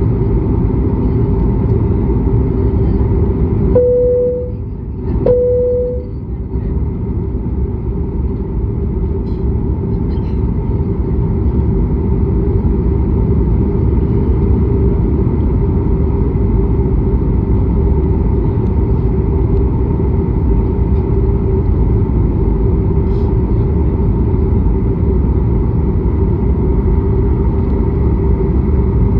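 Steady rumble of jet engines and airflow heard inside an airliner's cabin in flight, with a constant hum. About four seconds in, two short beeping tones of the same pitch sound a second or so apart.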